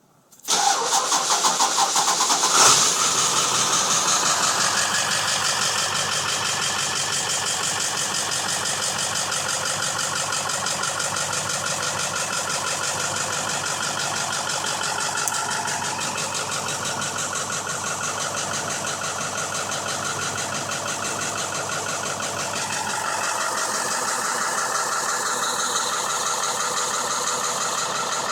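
2001 Ford F-350's 7.3-litre Powerstroke turbo-diesel V8 cranking and starting, then running steadily at idle. The truck has a hard-start problem that the owner is trying to diagnose.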